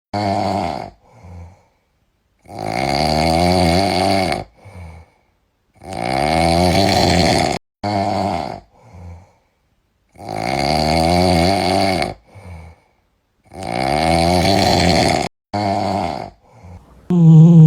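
Sleeping cat snoring: long, rattling snores with a wavering pitch, one about every three and a half to four seconds, each followed by a short, softer breath. A louder cat sound begins right at the end.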